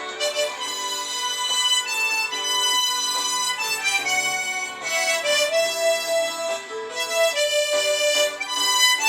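Harmonica playing a slow melody in held notes, with one longer sustained note midway.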